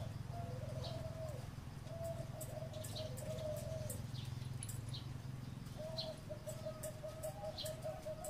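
Zebra dove cooing: a few rolling coo phrases in the first four seconds, a short pause, then a quick stuttering run of coos from about six seconds in.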